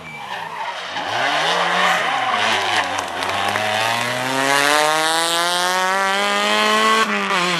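Rally car engine through a corner: the revs rise and fall several times as it slows, then climb steadily for about three seconds as it accelerates away. The revs drop sharply at a gear change near the end and start climbing again.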